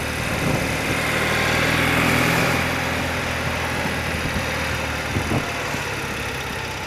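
A 30-year-old BMW motorcycle's engine running steadily while riding at town speed, over an even rush of wind and road noise.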